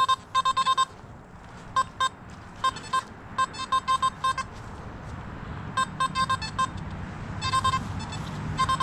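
Metal detector giving runs of short, same-pitched beeps as the search coil is swept back and forth, signalling a buried metal target. A low hum builds underneath in the second half.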